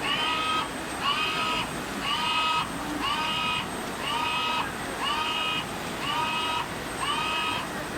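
HP88 fast cutting plotter's drive motors whining in repeated strokes, about one a second, each rising quickly in pitch and then holding steady as the cutting head moves.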